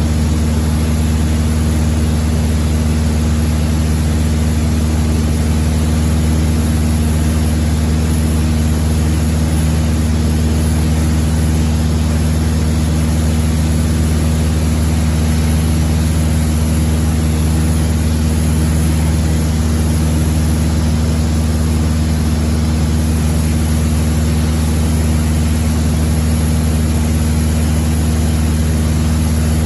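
Propeller aircraft's engine and propeller running steadily, heard from inside the cabin: a loud, even low hum with a constant rush of air over it.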